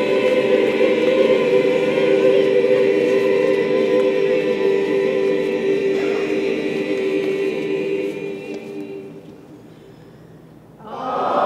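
A group of voices holding one steady chord of several notes at once, a sustained experimental harmony, which fades away over a couple of seconds after about eight seconds; a new held chord enters loudly just before the end.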